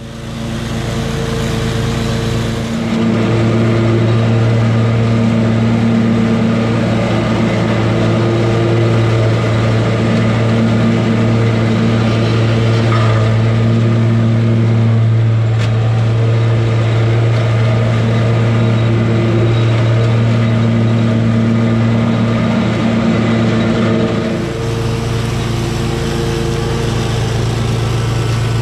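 Gravely 52-inch residential zero-turn mower's engine running steadily with the blades engaged, cutting wet tall grass and holding an even speed under the load. The hum gets louder about three seconds in and drops back somewhat near the end.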